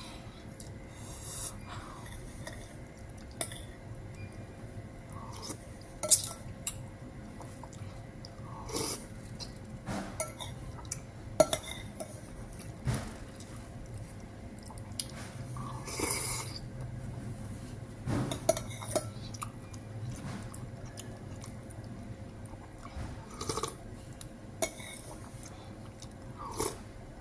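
Cutlery clinking and scraping against a plate at irregular intervals during a meal of lontong sayur, with a few sharper, ringing knocks.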